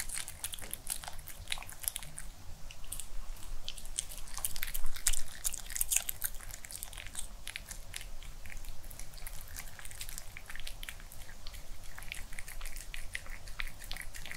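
A white Pomeranian eating a crispy, air-fried chicken-and-cheese cutlet: chewing and crunching, with a dense run of short, sharp mouth clicks and licks, loudest about five seconds in.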